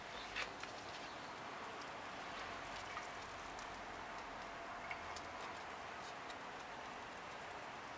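Faint steady outdoor background noise with a thin steady hum and scattered light ticks and rustles, the kind made by a handheld camera moving through rose foliage.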